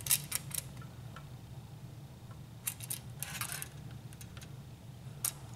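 A few light clicks and rattles of small hard plastic or metal objects being handled, with a short cluster of them about three seconds in, over a faint steady low hum.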